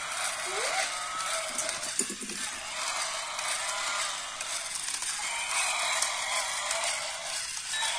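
Battery-powered walking toy dinosaur's small gear motor running, with a steady mechanical rattle and plastic legs clicking on the tile floor as it walks.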